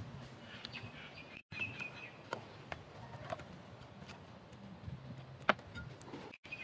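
Quiet outdoor background with birds chirping, mostly in the first two seconds, and a few sharp clicks and light scrapes from hands working at the paper covering on the axe blade's edge. The loudest click comes about five and a half seconds in.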